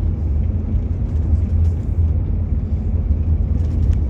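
Steady low rumble of a tour bus driving, engine and road noise heard from inside the cabin.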